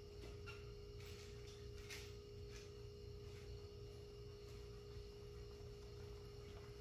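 Quiet room tone: a steady faint hum with a constant pitched tone running through it, and a few faint ticks.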